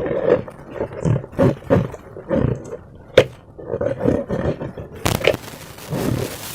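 Irregular rubbery squeaks and squelches from slime and balloons being handled, with a sharp click about three seconds in and a steady hiss from about five seconds.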